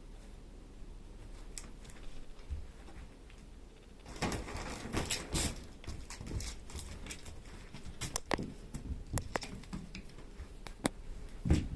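Kittens scampering and playing on a hard floor: light scattered pattering taps and scuffles, with a busier stretch of rustling about four to six seconds in and a sharper knock near the end.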